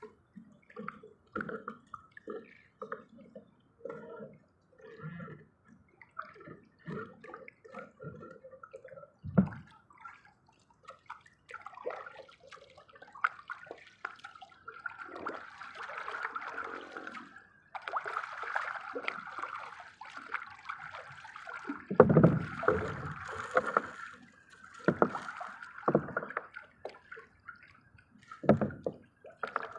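Water sloshing and splashing around a small fishing boat, irregular throughout and busier in the middle, with a few loud knocks.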